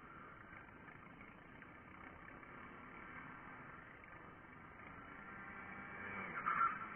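Race vehicle engines running on the circuit, heard from a distance: a faint, steady engine note that swells to its loudest about six and a half seconds in, as one vehicle comes nearer.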